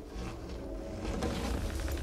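Film soundtrack of a low, rumbling drone with music over it, and a few faint ticks.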